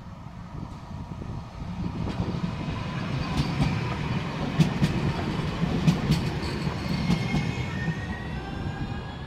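Siemens Avanto electric tram-train passing close by, the steady rumble of its wheels on the rails building to a peak around the middle. Sharp clicks come as the wheels cross rail joints, over a thin high whine, and the sound eases off near the end as it moves away.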